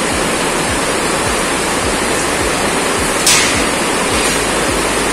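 Steady loud rushing noise, with a faint low thud repeating about twice a second. About three seconds in, a short, sharp, bright scrape comes as a long steel bar is lifted and handled.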